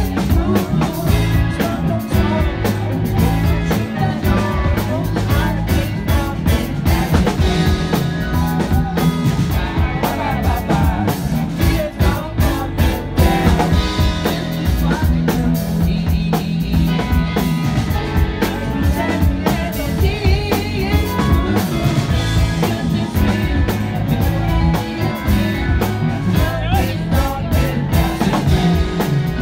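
Live rock band playing: electric guitar and drum kit, with a man singing lead over them.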